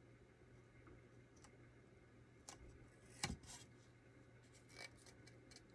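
Near silence with a few faint clicks and taps as a small plastic Calico Critters toy piece is handled while a sticker is pressed on; the loudest click comes a little past the middle.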